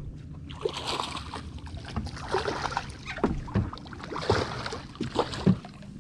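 A hooked redfish thrashing and splashing at the surface right beside the boat, in irregular bursts, with several short dull thumps in the second half.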